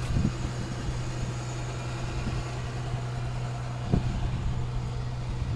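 Steady low hum of an idling vehicle engine, with two short thumps, one just after the start and one about four seconds in.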